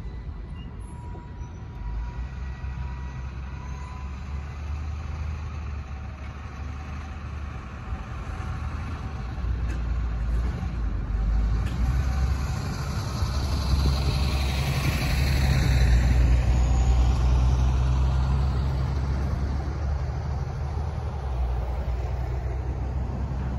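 Road traffic moving again over a level crossing once the gates are up: engines and tyres of cars and a box truck passing close by. The sound builds to its loudest a little after halfway, then eases off.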